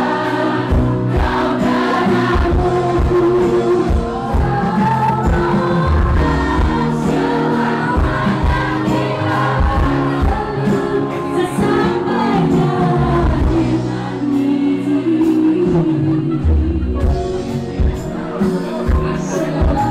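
Live Indonesian pop band music with a female lead vocal, the audience singing along with her, over a steady drum beat.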